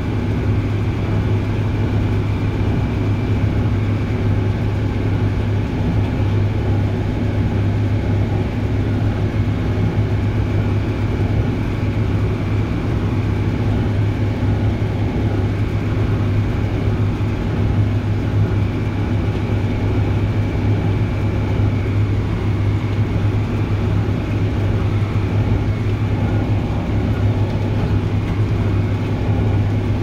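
John Deere 7400 tractor's diesel engine running at a steady working speed under load, driving a John Deere 346 small square baler as it picks up hay: a steady low drone with a faint high whine.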